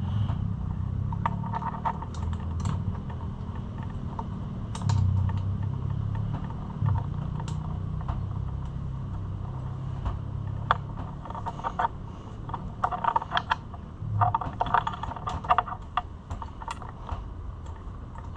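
Irregular light clicks and rattles of small metal and plastic parts being handled during carburetor and choke-cable reassembly. The clicking comes in quick runs, busiest in the second half, over a steady low hum.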